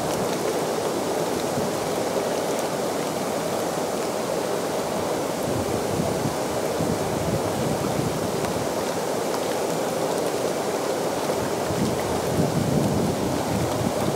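Hot tub jets churning the water: a steady rushing and bubbling.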